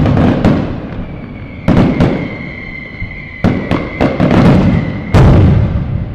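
Fireworks going off: a run of sharp bangs with echoing tails, a steady high whistle held for about four seconds in the middle, and the heaviest, deepest bang about five seconds in.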